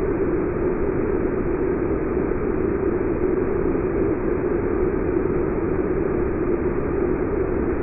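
Waterfall rushing: a steady, unbroken roar of falling water with a deep, dull tone.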